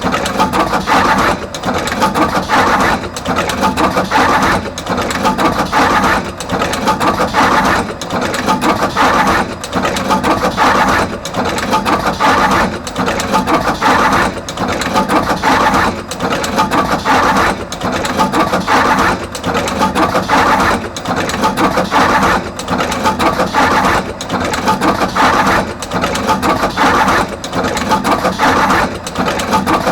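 Artos CR22 automatic wire processing machine running in production, cutting wire and crimping terminals on both ends, its mechanism cycling steadily about once every 1.7 seconds.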